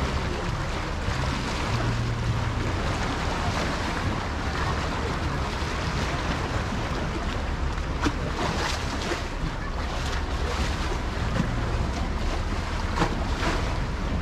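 Seaside ambience: a steady wash of waves and wind, with wind buffeting the microphone and a low rumble underneath. A few brief sharp knocks or splashes come about eight and thirteen seconds in.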